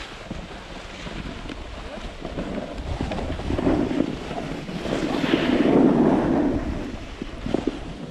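Wind rushing over the camera microphone while moving down a ski slope, swelling louder twice, the second time for over a second, partway through.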